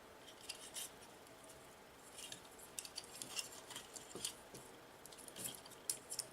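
Small parts of a micro FPV quadcopter being handled and fitted by hand: light, irregular clicks and taps of plastic and small hardware.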